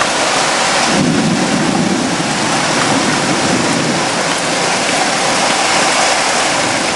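Heavy rain pouring steadily, with a low rumble of thunder that starts about a second in and fades over the next few seconds.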